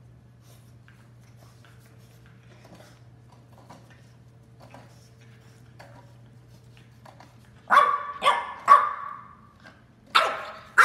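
French bulldog puppy barking: three quick barks about eight seconds in, then two more near the end.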